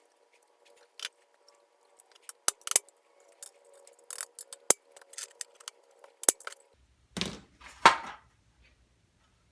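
Small metal parts clicking and clinking sharply as they are handled, a dozen or so separate strikes, then two longer, louder scuffing sounds near the end.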